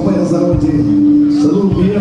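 Live cumbia band playing an instrumental passage, with a long note held through the middle.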